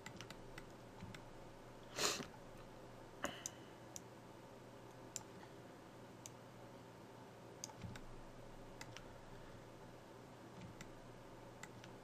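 Scattered clicks of a computer mouse and keyboard, irregular and a few seconds apart, with the loudest about two seconds in, over a faint steady hum.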